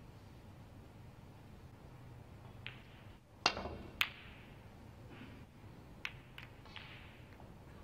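A snooker cue tip strikes the cue ball with a sharp crack, and about half a second later the cue ball clicks against a red. A few lighter clicks follow near the end as the ball travels back up the table.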